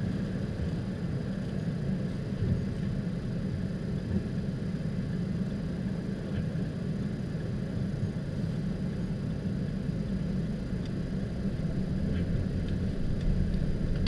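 Steady low rumble of a vehicle driving on a snow-covered road, heard from inside the cabin: engine and tyre noise.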